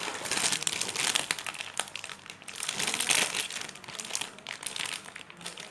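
Crinkling and rustling as a marshmallow squishy toy is handled and squeezed, with many small irregular crackles.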